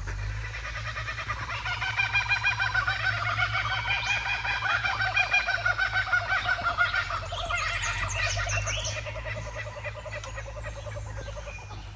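Birds calling in a long, rapidly pulsing chorus that builds over the first few seconds and fades away near the end, over a steady low hum.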